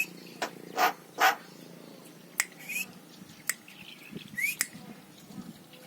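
Javan myna calling: short rising whistles, sharp clicks and brief noisy squawks, scattered irregularly.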